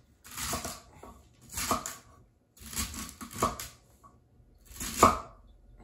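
Kitchen knife chopping celery on a wooden cutting board, in short runs of quick chops with pauses between.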